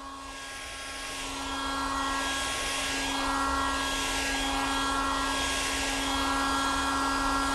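A motor-driven machine running steadily with a humming whine over a rushing noise, growing louder over the first couple of seconds and then holding steady.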